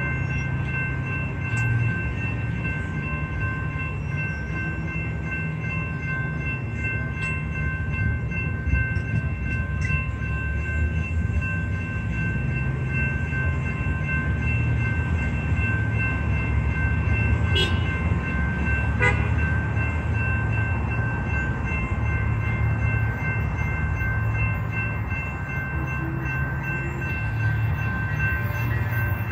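Railroad grade-crossing warning bell ringing continuously, steady high tones over a low rumble: the crossing is activated for an approaching train. A couple of faint clicks sound about two-thirds of the way through.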